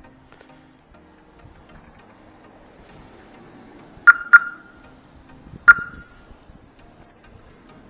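Three short, sharp pings with a brief ringing tone: two close together about four seconds in, and one more about a second and a half later.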